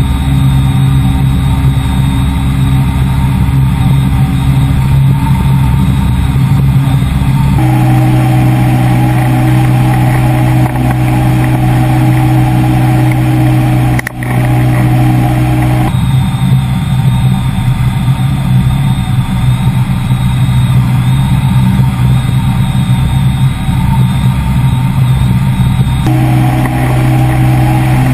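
Ultralight trike's engine and pusher propeller droning steadily in flight, loud and unchanging in speed. The tone of the drone shifts abruptly three times, about a quarter, half and most of the way through.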